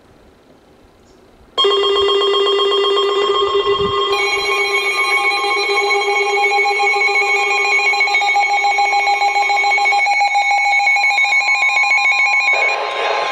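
Electronic emergency-alert alarm tones sounding for a severe thunderstorm warning. They start suddenly about a second and a half in, loud and rapidly warbling. A second alarm with different pitches joins about four seconds in, and the first one stops a few seconds before the end.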